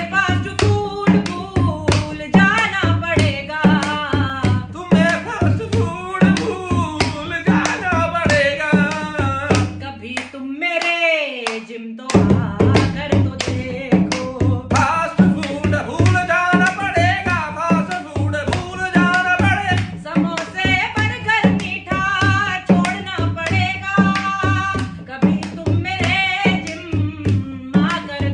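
A woman sings a qawwali-style song in Urdu, with a dholak beaten by hand in a steady rhythm and hand-claps keeping time. Near the middle the drum and claps stop for about a second and a half while her voice slides down, then the rhythm starts again.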